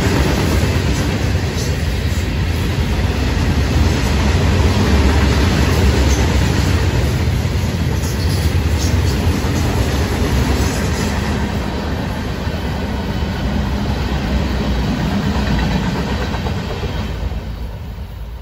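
Covered hopper cars of a freight train rolling past, a steady heavy rumble of steel wheels on rail with faint clicks. The sound fades away over the last couple of seconds as the end of the train goes by.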